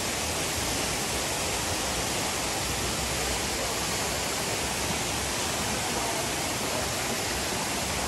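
Steady rushing of a shallow stream running over rocks and small cascades.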